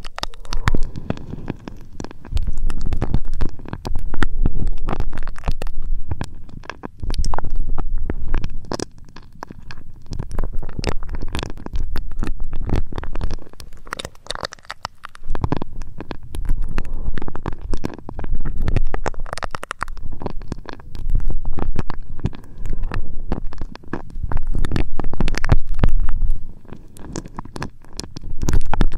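Close rubbing and scratching against the ears of a 3Dio binaural microphone, a deep muffled rumble with crackles, coming in repeated strokes a few seconds apart.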